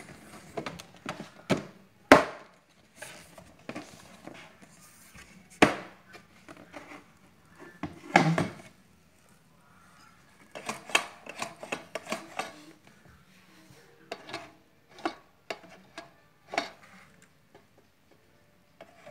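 Hard plastic parts of a rice dispenser being pressed together and handled: irregular sharp clicks and knocks, the loudest about two seconds in and again about eight seconds in.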